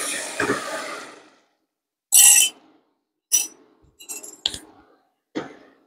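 Browned minced meat sizzling in a hot pan as vegetable broth is poured in to deglaze it, the hiss dying away within about a second and a half. Then four short clinks, a utensil against cookware.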